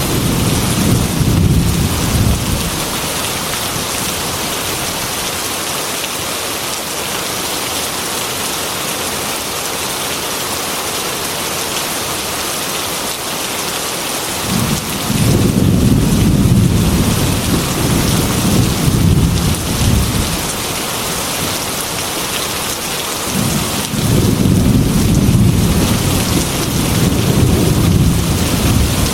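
Heavy rain beating steadily on a glass window, with rolling thunder rumbles: one fades out in the first couple of seconds, another rolls in about halfway through, and a third comes near the end.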